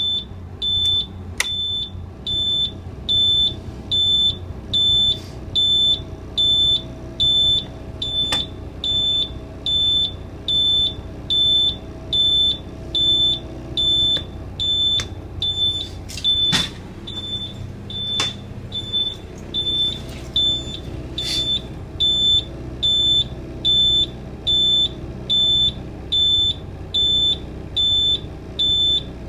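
A dash warning buzzer beeping evenly, a little more than once a second, over the Cummins 8.3 inline-six diesel idling after a cold start; the beeping is the low-air-pressure warning, sounding because the air brake system has not yet built up pressure.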